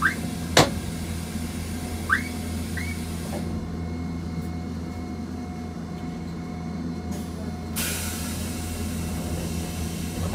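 Steady low electric hum of a Randen (Keifuku) tramcar standing still, with a sharp click about half a second in and a few short rising chirps early on and around two to three seconds in.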